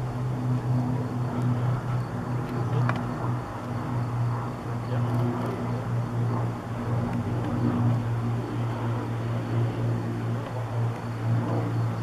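The four Rolls-Royce Merlin V12 engines of an Avro Lancaster bomber droning steadily as it flies past on its landing approach with gear down: a low, even drone that swells and eases slightly.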